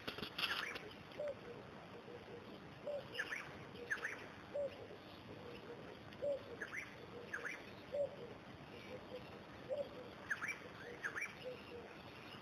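Birds calling faintly: pairs of short high chirps every three to four seconds, over a lower short note repeated at a steady pace.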